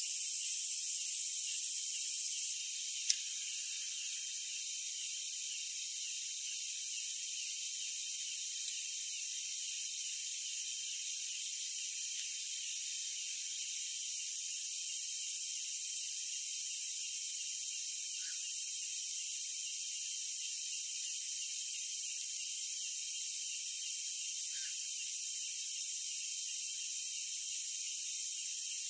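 Steady high-pitched chorus of night insects, with one sharp click about three seconds in.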